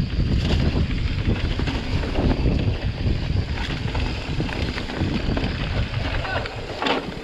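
Wind rushing over the microphone as a mountain bike rolls downhill on a dirt trail covered in dry leaves, with the tyres on leaves and dirt and the bike rattling over the bumps. A couple of sharp clicks come near the end.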